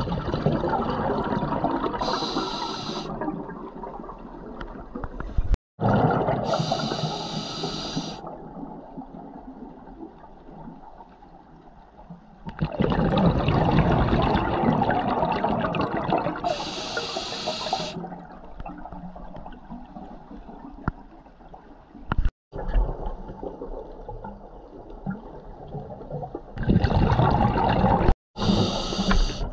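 Scuba diver breathing through a regulator underwater: several short hissing inhalations alternate with longer gurgling rushes of exhaled bubbles.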